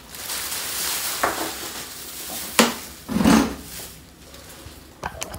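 Handling noises from unpacking a plastic-wrapped air fryer: plastic packaging rustling and crinkling, then a sharp knock, a dull thump about three seconds in, and a few light clicks near the end.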